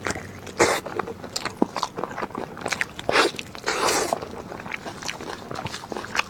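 Close-miked eating of pork knuckle in soup with rice: wet chewing and biting with many small mouth clicks, and a few louder smacking bursts, the longest about four seconds in.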